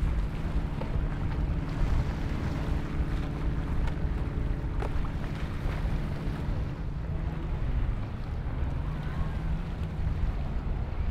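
Motorboat engines droning in the inlet, a steady low rumble that eases about halfway and builds again near the end, with wind buffeting the microphone.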